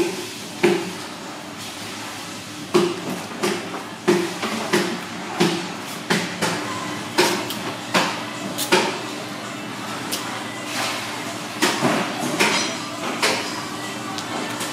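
Knife chopping on a cutting board: a run of sharp knocks, about one a second and unevenly spaced, over a steady hum.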